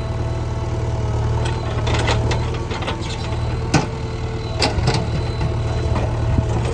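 JCB 3DX backhoe loader's diesel engine running steadily, with a run of sharp clatters and knocks over it, the loudest about four seconds in.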